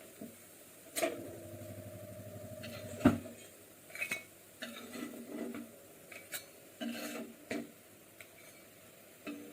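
Pots, pans and cooking utensils clattering in a kitchen: a string of knocks and clinks, the loudest about three seconds in. After the first knock comes a ringing hum lasting about two seconds, and there is scraping between the later knocks.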